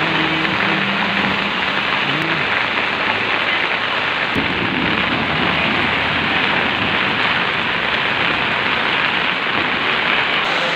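Heavy rain pouring down steadily. A low rumble joins about four seconds in.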